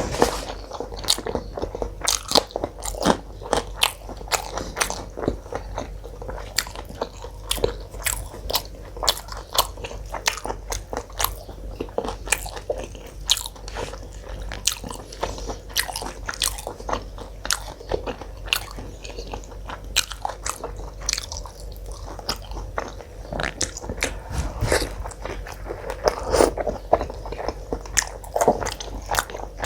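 A person eating close to the microphone: a continuous, irregular run of wet chewing and lip smacks with crunchy bites, as mutton curry with paratha and salad is chewed.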